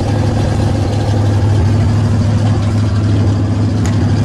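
Chevy K-10 pickup's engine idling steadily, shortly after a cold start, with a single sharp click near the end.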